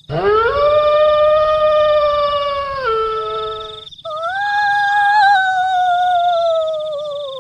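Two long, drawn-out howls. The first rises, holds steady for about three seconds and steps down in pitch before breaking off about four seconds in; the second follows at once and slowly falls in pitch. A faint steady high whine runs underneath.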